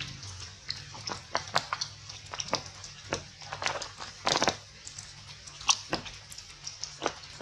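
Monkeys moving through wet, leafy undergrowth: scattered sharp crackles and snaps of leaves and twigs, with a longer, louder rustle about four seconds in.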